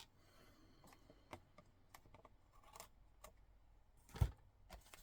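Small scattered clicks and taps of card pieces and craft tools being handled on a desk, with one louder knock about four seconds in.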